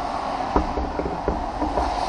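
Several short, light knocks, about four in two seconds, over a steady background hum.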